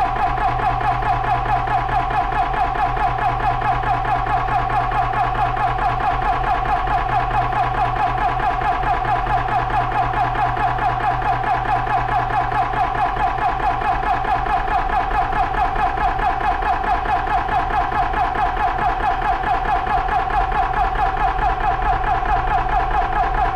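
Benjamin Traveler 4500 PSI portable PCP air compressor running steadily under load as it pumps a rifle's air reservoir up in pressure, a constant hum with a rapid, even pulse.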